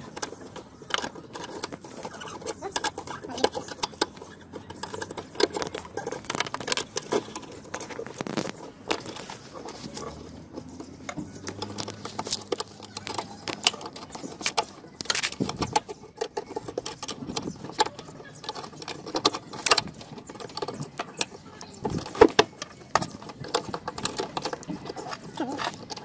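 Irregular clicks, taps and rattles of hands working a car wiper motor and its mounting screws and linkage into place, with close rubbing and knocking of fingers on the recording phone.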